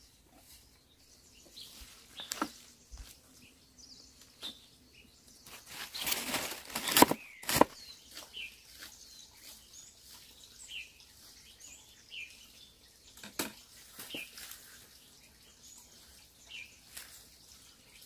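Leafy greens being cut and handled: a few separate knocks of a knife on a wooden board, and a loud rustle of leaves about six seconds in that ends in a knock. Small birds chirp now and then through the second half.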